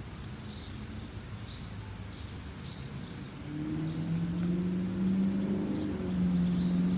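A small bird chirping, short high chirps about once a second. From about halfway a low, steady engine hum comes in and grows louder.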